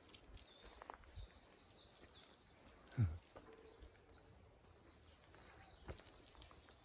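Small birds chirping over a quiet outdoor background: short high calls, several a second. About three seconds in, one brief low voice falls in pitch, and a single soft knock comes near the end.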